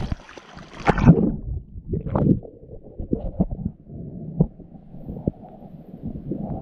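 Sea water splashing over a camera at the waterline, then muffled sloshing with dull knocks about once a second as the camera bobs in the swell, dipping in and out of the water.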